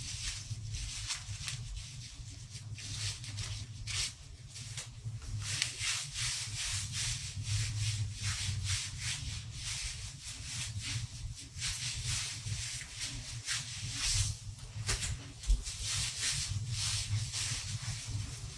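Irregular rubbing and rustling, like something scraping against the microphone, over a steady low hum.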